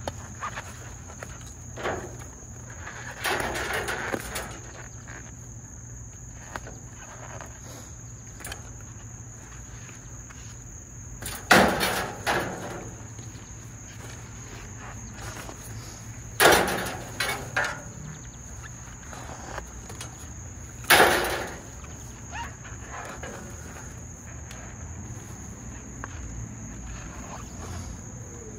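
Three loud knocks about five seconds apart, each ringing briefly, from handling scrap copper pipe, against a steady high-pitched insect drone.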